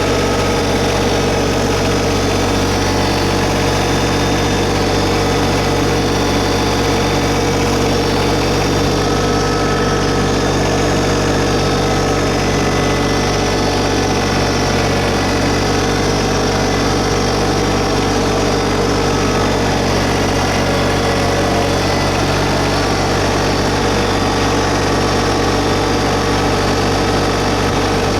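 LS MT125 compact tractor's three-cylinder 1.3-litre Yanmar diesel running steadily at a slightly raised idle.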